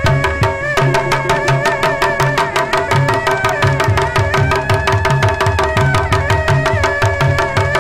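Background music: a fast, steady drum beat under a held, wavering melody line and a repeating bass pattern.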